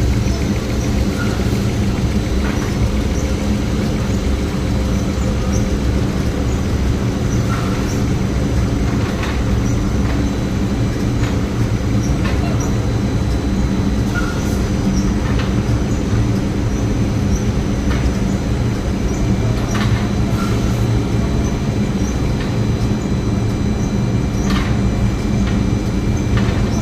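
Factory production machinery running at full capacity: a steady, dense low hum with a faint high whine and scattered short clicks and knocks.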